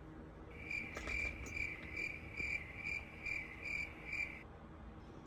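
Cricket chirping, a steady trilling pulse about two or three times a second, starting and stopping abruptly after about four seconds, like an inserted 'crickets' sound effect.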